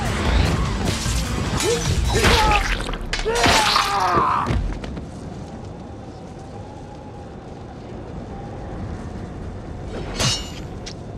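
Action-film fight sound mix: loud crashes and impacts over music for the first four seconds or so. A quieter stretch follows with a held, wavering note, and a single sharp hit with a ringing tail comes near the end.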